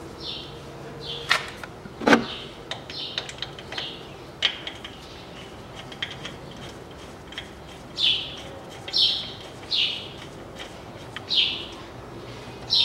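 A bird chirping repeatedly, short falling notes, several about a second apart in the second half, mixed with sharp metallic clicks and clacks from hand work on the engine, the loudest a clack about two seconds in.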